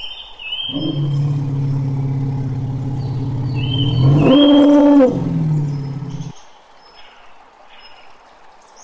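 African elephant giving a long, low rumbling call that jumps higher and louder for about a second in the middle, then drops back and stops abruptly about six seconds in. Small birds chirp throughout.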